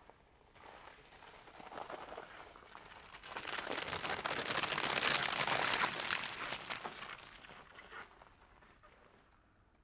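Bicycle tyres rolling through a frozen puddle, the thin ice cracking and crunching in a dense crackle. The crackle swells to its loudest about five seconds in and dies away by about eight seconds.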